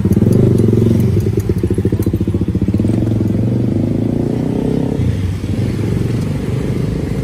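An engine running close by, with a rapid, even throb that is strongest in the first few seconds and eases off about five seconds in.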